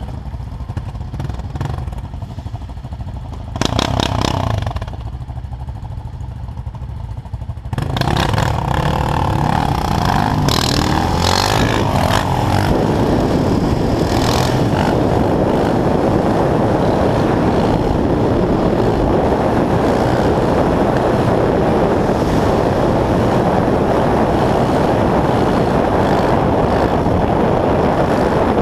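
Sport quad bike engines running and revving on the move, with rushing wind on the microphone; the sound gets much louder about eight seconds in as the ride picks up speed, and stays loud and steady after that.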